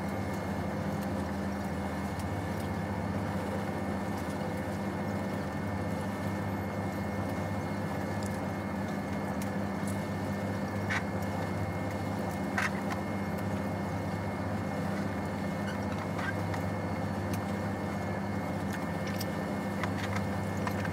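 Steady low hum of the Sunflower ferry's engines and machinery heard inside a passenger cabin, with a couple of faint clicks near the middle.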